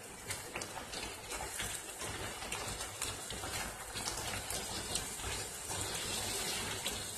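Thick curry gravy sizzling in a nonstick pan on a low flame while a spatula stirs it, with many small clicks and scrapes of the spatula against the pan.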